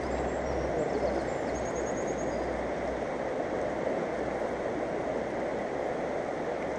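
Steady rush of a fast mountain river's flowing water.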